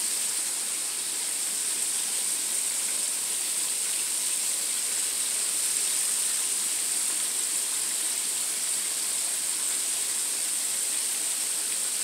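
Pig feet deep-frying in a wok of hot oil, the oil sizzling as one steady, even hiss.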